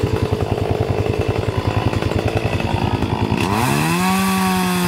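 Two-stroke chainsaw idling with a fast, even chop, then revved up about three and a half seconds in, its pitch sweeping up and holding high at full throttle.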